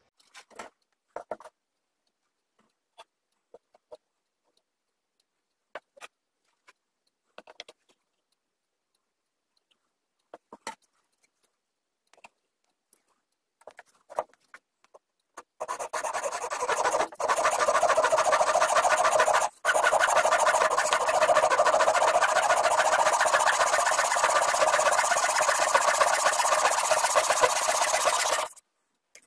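A few light clicks and taps of wood and tools being set in place, then about halfway in a Japanese backsaw starts sawing steadily through a dark hardwood board held in a wooden saw guide, a continuous rasping that runs for about 13 seconds with two very short breaks and stops just before the end.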